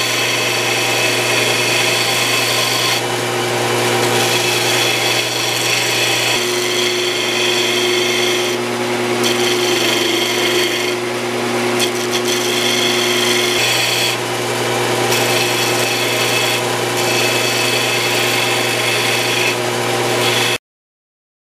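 Bench combination belt and disc sander running steadily, with a small aluminum plate's edge pressed against the spinning sanding disc; the grinding rises and eases as the part is worked. It cuts off suddenly near the end.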